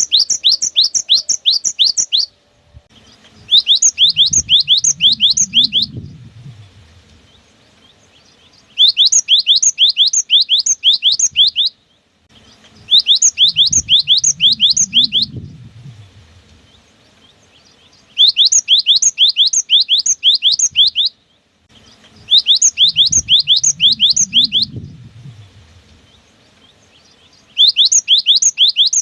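Cinereous tit (gelatik batu) singing in bursts of fast, repeated sharp whistled notes, the "wucit wucit" song, about seven phrases of two to three seconds each with short pauses between them. A low rumble sits under some of the phrases.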